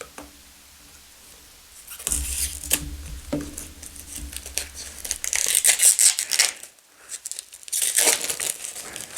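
Tarot deck packaging being torn open and crinkled by hand, starting about two seconds in, with a brief pause near the end.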